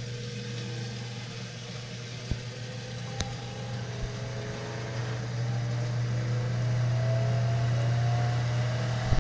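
Ninja Foodi XL Grill & Griddle running mid-cook: the steady hum and rush of air from its fan. It gets somewhat louder about halfway through, with a couple of faint clicks early on.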